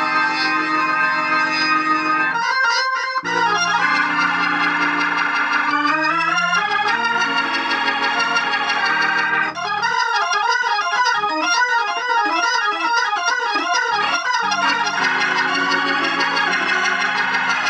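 Hammond organ played through an amplifier fitted with new capacitors for a sound check: held chords changing every few seconds, with a stretch of quick runs of notes in the middle.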